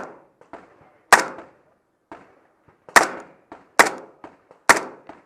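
Four gunshots at uneven intervals, roughly a second apart, each with a short ringing echo, with a few fainter knocks between them.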